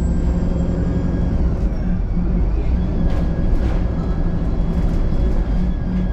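VDL SB200 Wright Pulsar 2 single-deck bus under way, heard on board: a steady engine drone with a faint high whine over it and a few light rattles.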